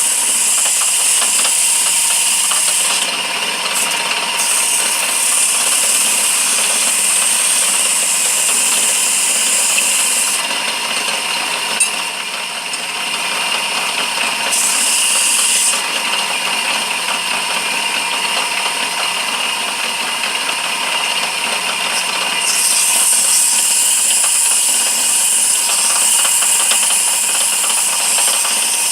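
Lathe motor running steadily while sandpaper is held against the spinning walnut handle, giving a high sanding hiss that comes and goes and drops out for a few seconds around the middle.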